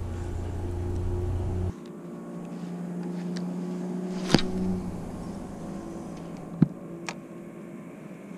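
A boat motor humming steadily; its deep low part cuts off suddenly about two seconds in while a fainter steady hum carries on. A few short sharp knocks come through it, the loudest just past the middle.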